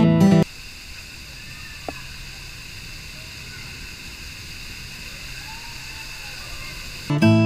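Lazy river ambience at a water park: a steady wash of moving water with faint voices and one sharp click about two seconds in. Acoustic guitar music stops half a second in and comes back near the end.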